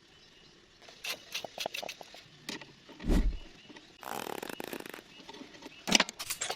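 Hard objects being handled: a string of sharp clicks and knocks, a heavy thud about three seconds in, then about a second of rasping noise and a few more clicks near the end.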